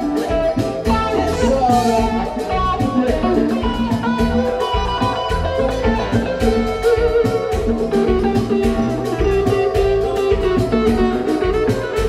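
Live band music led by electric guitar lead lines on a Fender Stratocaster, with notes bending in pitch, over bass and drums keeping a steady beat.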